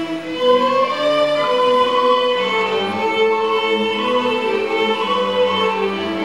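Small ensemble of violins and cello playing a piece together, several bowed parts moving in long held notes.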